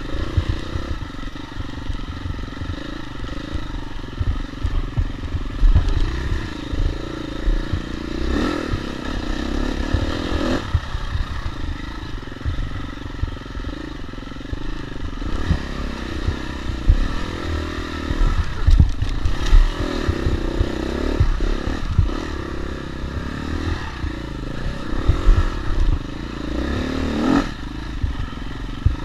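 Dirt bike engine revving up and down again and again as the throttle is worked, with its pitch climbing sharply several times. Frequent short low thumps and knocks from the bike bouncing over rough ground.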